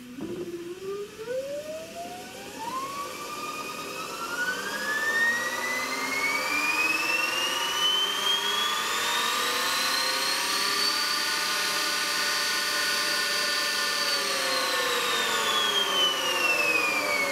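2009 Zero MX electric motorcycle's drive motor spinning up on the bench under throttle, powered from a single row of its battery cells: a whine rising smoothly in pitch for about ten seconds, holding at top speed for a few seconds, then falling as the throttle is let off and the motor winds down.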